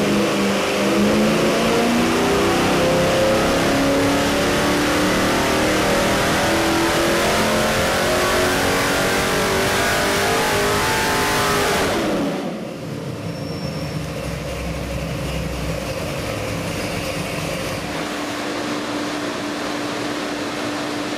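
Ford 427 Windsor stroker V8 (351 Windsor-based, Holley-carbureted) making a wide-open-throttle sweep pull on an engine dynamometer: the revs climb steadily from about 3,100 rpm to around 6,000 rpm over roughly twelve seconds. The throttle is then chopped, the revs fall away quickly, and the engine settles to a steady idle.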